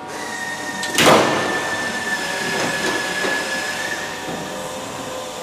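Pneumatic rivet gun firing one short burst about a second in, setting a rivet in the fuselage skin against a bucking block. A thin, steady high whistle runs under it for a few seconds.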